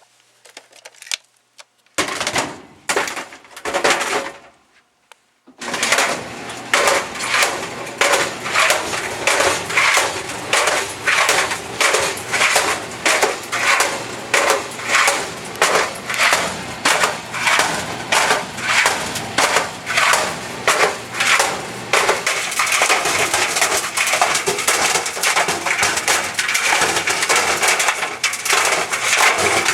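Dell laptop tumbling in a running clothes dryer, banging against the drum about once or twice a second over the hum of the machine. The tumbling starts about five seconds in, and a steady high whine joins later on.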